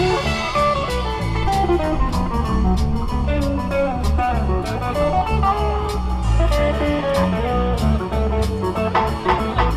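Music: a guitar-led instrumental in a blues or jazz style, with bass and a steady drum beat.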